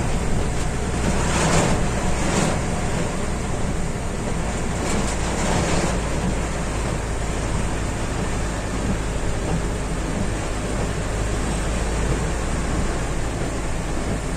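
Steady low engine rumble under an even hiss of rain, with a few short swishes in the first six seconds.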